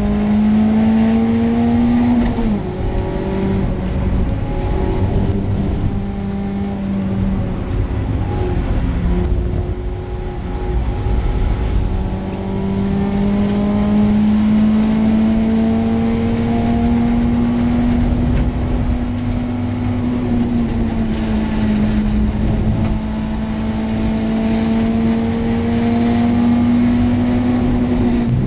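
BMW 318is four-cylinder engine, heard from inside the cabin, driven hard on a race track. Its pitch climbs slowly under load and drops sharply several times as the driver lifts or changes gear, over steady tyre and road noise.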